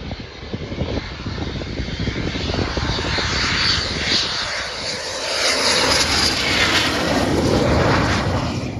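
Red Arrows BAE Hawk T1 jet, with its Adour turbofan, coming in low on landing approach: jet noise that grows louder as it nears and is loudest near the end as it passes close, with a sweeping whoosh that rises and falls in pitch.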